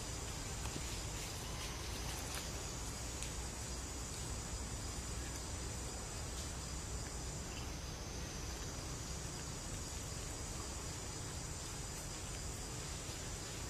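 Insects droning steadily in a high band, with a low rumble underneath.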